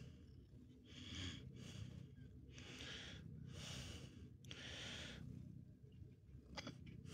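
Faint breathing close to the microphone, a soft breath about every second, over a low steady rumble.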